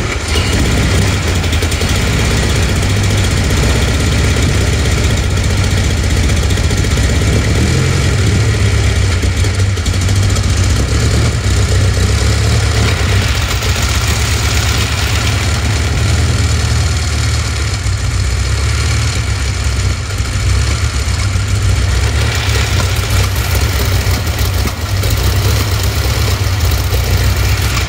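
1918 Curtiss OX-5 water-cooled V8 aero engine, enlarged to 9 litres, idling steadily in a Frazer Nash special.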